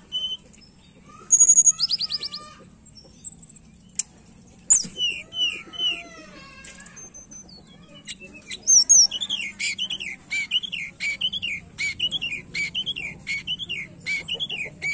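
Hill blue flycatcher singing: a string of varied clear whistles and high chirps, then, from about nine seconds in, a rhythmic run of repeated rising-and-falling whistled notes, nearly two a second.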